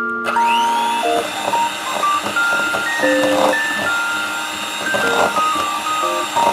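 Electric mixer switching on, its motor whine rising quickly to speed and then running steadily.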